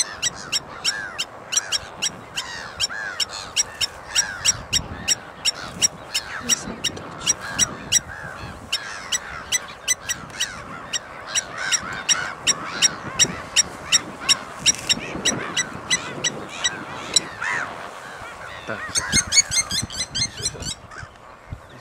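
Blacksmith lapwings calling: a long run of sharp, metallic 'tink' notes like a hammer on an anvil, about two to three a second and quickening near the end, the bird's alarm call. Lower honking calls run underneath.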